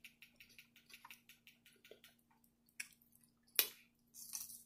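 Wet mouth sounds of eating: a few sharp lip smacks and clicks, the loudest about three and a half seconds in, over a faint steady hum.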